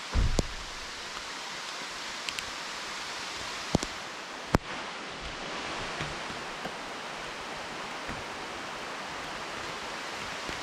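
Steady hiss of rain falling, with a low thump at the start and a couple of sharp clicks about four seconds in.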